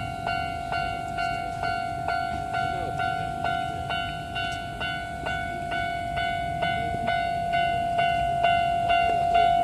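Japanese level-crossing warning bell ringing steadily, about two strikes a second, over the low rumble of an approaching train that grows louder near the end.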